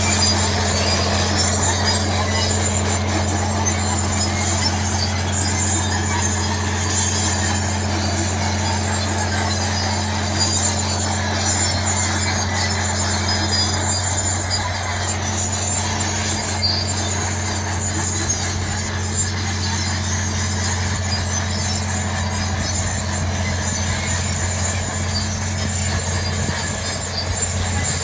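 Crawler tractor's diesel engine running steadily under load as it pulls a deep plough through dry soil, with the noise of its steel tracks.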